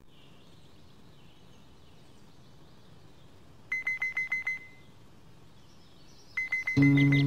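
A mobile phone alarm beeping: a fast run of short, high beeps, about eight a second, lasting just under a second, then starting again near the end as acoustic guitar music comes in.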